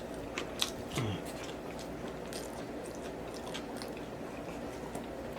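A person chewing food close to the microphone, with wet mouth clicks and smacks scattered through it and a short falling hum about a second in.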